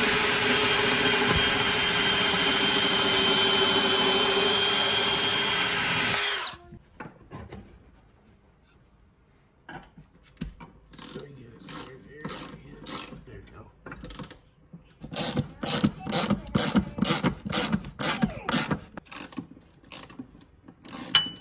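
A power drill runs steadily with a constant whine, boring a pilot hole into a wooden wall, and stops about six seconds in. After a pause, a ratchet wrench clicks through a long run of quick strokes, driving lag bolts through a TV wall-mount bracket into the wood.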